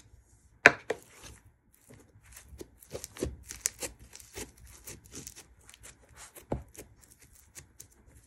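Fizzy-textured slime crackling and popping in quick, irregular little clicks as hands press it down into a round plastic tub. A sharp knock comes under a second in, the loudest sound, with another firm one near the end.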